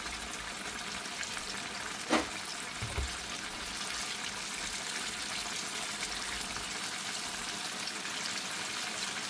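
Battered chicken breasts deep-frying in hot oil, a steady bubbling sizzle. A short sharp click about two seconds in and a soft low knock about a second later.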